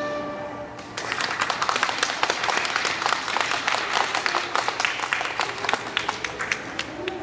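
The band's last held chord fades out, and about a second in an audience breaks into applause that carries on and thins out near the end.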